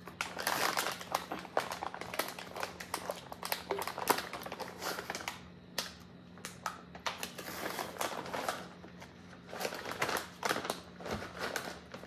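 Plastic snack pouch crinkling as a hand rummages inside it for chocolate-covered nuts: dense crackling for the first few seconds, then in shorter bursts.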